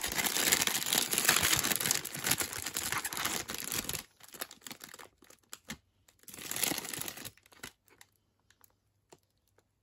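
A foil-lined Ruffles crisp packet being pulled open, crinkling and tearing loudly for about four seconds. A few light rustles follow, then a second, shorter crinkle of the bag about six seconds in as a crisp is taken out.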